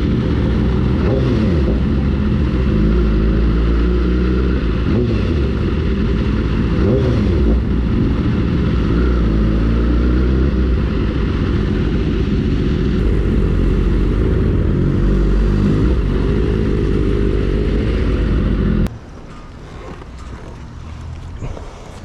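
BMW 1000 cc inline-four superbike with an Akrapovič exhaust running under way, the engine note rising and dipping with the throttle. About 19 seconds in it cuts off suddenly to a much quieter steady rumble.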